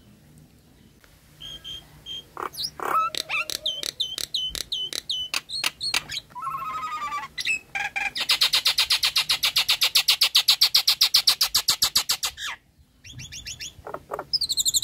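Nias hill myna singing a varied run of loud whistles, clicks and squawks, then a long, fast, rattling series of about ten notes a second lasting about four seconds. After a brief break it resumes with more whistles.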